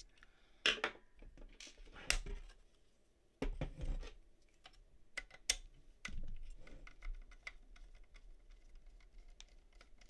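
Phillips screwdriver turning screws out of a steel safe-lock cover: small, irregular clicks and taps of the driver tip and metal parts, a few sharper knocks among them.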